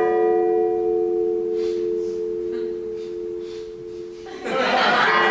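A metal bell rings after being struck, its two main tones fading slowly over about four seconds, then it is struck again about four and a half seconds in and rings on.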